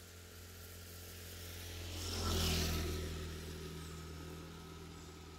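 A vehicle passing by on the road, its sound swelling to a peak about two and a half seconds in and then fading, over a steady low hum.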